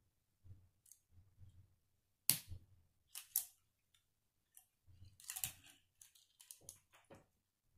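K'nex plastic rods and connectors clicking and snapping together as they are handled and fitted. There is a sharp snap about two seconds in, another a second later, and then a quick run of clicks in the last third.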